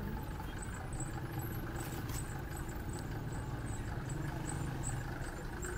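A motor vehicle's engine running steadily with a low hum, with faint short high chirps repeating about twice a second over it.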